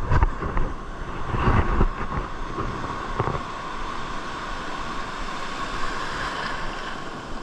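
Sea waves surging and washing in, with wind buffeting the microphone; a few low thumps in the first couple of seconds, then a steadier wash.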